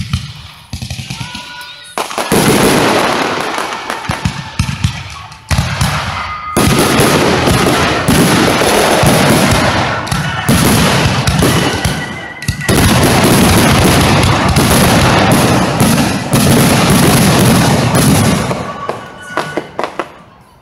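Fireworks display: aerial shells and rising comets bursting in a dense, almost continuous barrage of bangs and crackle. It thins to scattered pops near the end.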